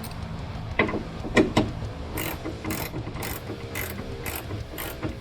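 Hand socket ratchet clicking as it turns the nuts on the truck's hood hinge studs, about two strokes a second from roughly two seconds in. A few sharp metal knocks come just before the clicking starts.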